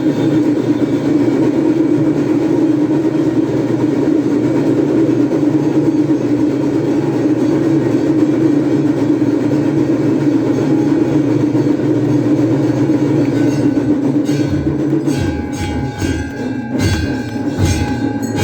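Temple aarti percussion: a loud, steady din of rapidly beaten drums and cymbals, which breaks up near the end into separate strikes of ringing bells.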